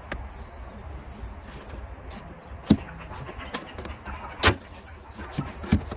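Scattered clicks and knocks of tools and parts being handled while a car's wiper assembly is taken apart, with two louder knocks nearly three seconds in and about four and a half seconds in, over a low steady rumble.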